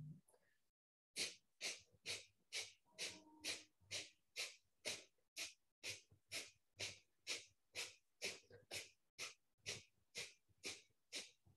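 Kapalbhati breathing through the left nostril alone: short, forceful exhalations pumped from the belly, about two a second in a steady rhythm.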